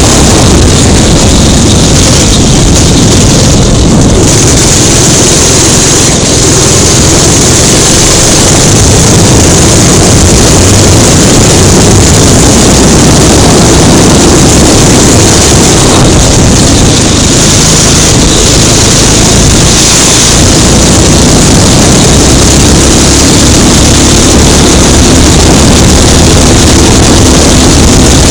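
Kart engine running hard as the kart laps the track, heard from an onboard camera mounted on the kart; loud and steady throughout.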